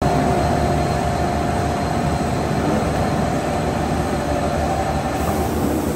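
Roll forming line for profiled metal roofing sheet running: a steady mechanical rumble with a whine that fades out near the end.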